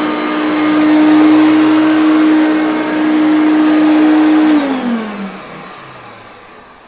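Hoover Concept One upright vacuum running with a steady high motor whine. About four and a half seconds in the pitch drops and the sound fades as the motor winds down.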